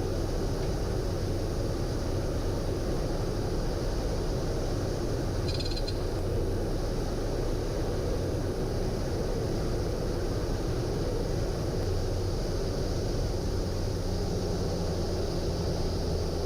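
Cessna 208 Caravan's Pratt & Whitney PT6A turboprop and airflow heard steadily from inside the cockpit on short final for landing, with a low drone under an even rush. A short, faint high tone sounds about five and a half seconds in.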